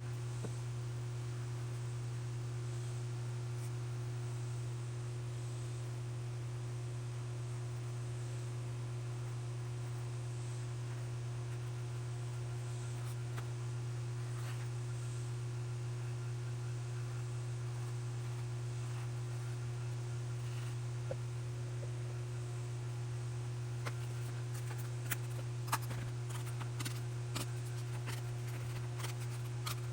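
A steady low hum, unchanged throughout, with a few faint clicks and taps in the last several seconds.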